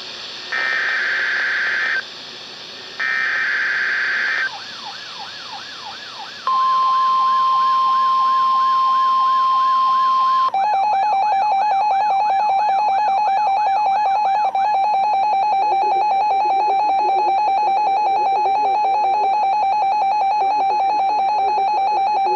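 Emergency Alert System weekly test alert received off NOAA Weather Radio on a Reecom EAS receiver. It opens with two short screechy bursts of SAME digital header data. A tone then warbles up and down for about ten seconds; over it, a steady loud tone near 1 kHz holds for about four seconds, followed by a steady buzzy alert tone that carries on to the end.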